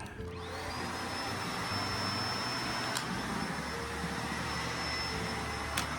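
Shark UV731 upright vacuum cleaner switched on: its motor spins up with a rising whine over the first second, then runs steadily with a high whine over the rush of air. Two light clicks come through, about halfway and near the end.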